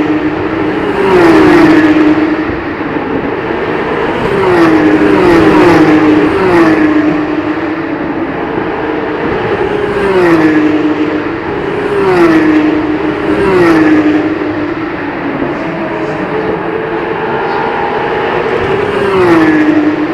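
Porsche 911 GT3 Cup race cars (type 991) passing one after another at speed, their flat-six engines at high revs. Each pass is an engine note that drops in pitch as the car goes by, about nine passes in all, some in quick pairs, with a quieter spell a little after the middle.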